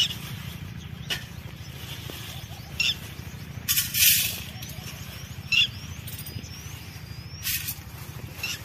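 Plastic bag crinkling in short bursts as it is handled and opened, loudest about four seconds in. Birds chirp over a steady low hum.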